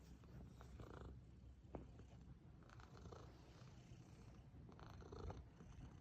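Scottish Fold cat purring faintly, a low steady rumble, with a few soft brief rustles over it.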